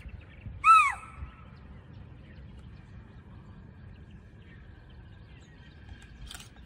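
A single loud, shrill alarm call of a spotted deer (chital) about a second in, short and falling in pitch: a deer sounding the alarm at a leopard on its kill.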